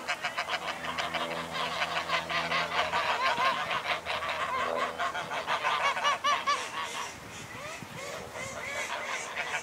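A flock of domestic geese honking, many short calls overlapping in a busy chorus that thins out about seven seconds in.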